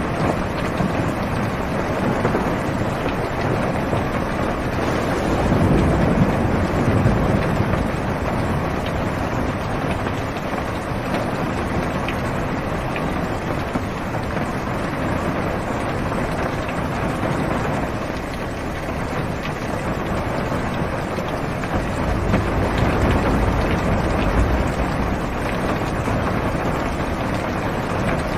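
Heavy rain drumming steadily on a car's roof and windows, heard from inside the cabin. Low thunder rumbles swell up twice, about five seconds in and again past twenty seconds.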